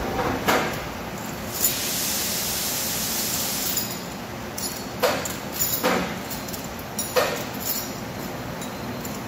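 Several sharp metallic clinks and knocks from a heavy machined steel ring hanging on crane slings as it is handled, over steady machine-shop background noise. A hiss runs from about two to four seconds in.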